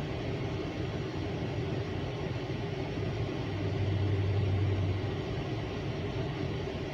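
Freight cars of a CSX mixed manifest train rolling past with a steady rumble. A low hum swells briefly about halfway through.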